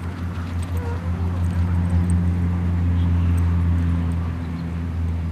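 A steady low engine drone that swells around the middle and eases off toward the end.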